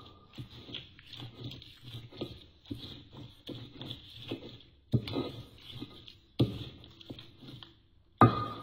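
Spice paste frying in hot oil in a wok: a steady sizzle with many small crackles and pops. A cooking utensil knocks against the wok three times in the second half, the last knock ringing briefly.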